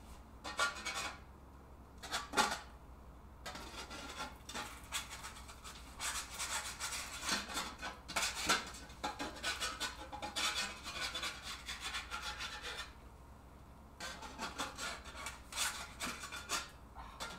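Metal spatula scraping and sliding across a skillet under a thin scallion-egg omelette layer. A few short scrapes come first, then scraping runs almost continuously, with a brief pause about three-quarters through.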